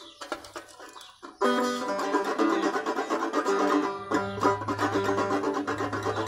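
Banjo being picked: a few scattered single notes, then about a second and a half in, a louder, steady stream of picked notes ringing together.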